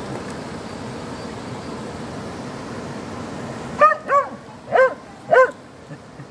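A small dog barking four times in quick succession, short high barks spaced about half a second apart, a little over halfway through. Underneath is the steady rush of flowing stream water.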